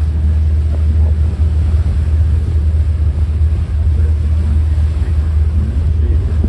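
Steady low engine rumble of a tour boat under way, with an even hiss of wind and water over it.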